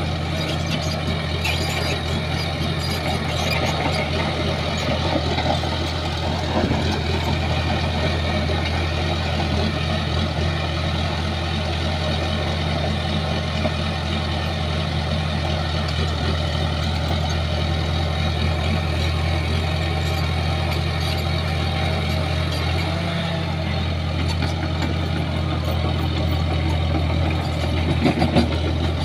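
Shantui crawler bulldozer's diesel engine running at a steady speed, with a couple of sharp knocks near the end.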